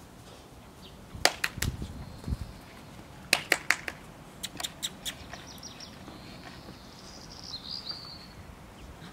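A series of quick, sharp clicks in short groups, about a second in and again around three to five seconds in, with a faint high chirping near the end.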